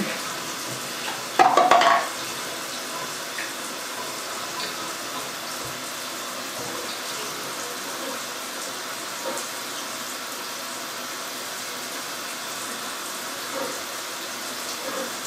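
Water running steadily from a bathtub tap during a cat's bath, an even rushing hiss. About a second and a half in, a brief louder pitched sound rises over it for about half a second.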